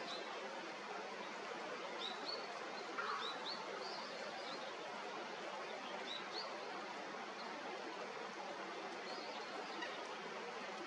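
Steady rush of flowing river water with scattered short, high chirps of small birds, several in quick succession about two to four seconds in and a few more later.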